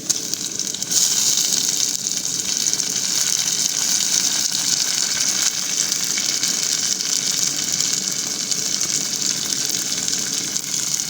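Chopped tomatoes sizzling in hot oil with fried onion and garlic in a pan, a steady hiss that jumps up about a second in as the wet tomatoes hit the oil.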